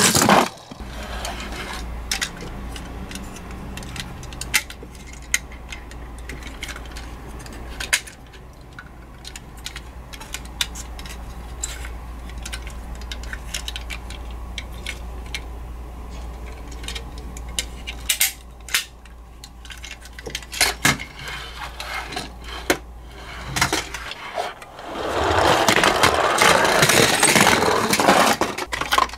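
Small clicks and taps of toy ambulances being handled and their doors worked, over a faint low hum. About 25 seconds in, a toy car rolls loudly down a wooden ramp and breaks through a paper target.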